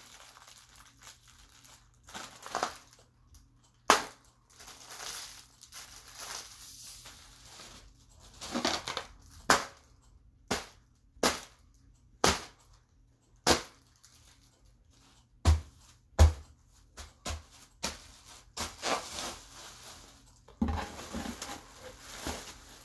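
Plastic bubble wrap being pulled out of a package and crumpled in the hands, a crinkling rustle broken by a dozen or so sharp, irregular snaps.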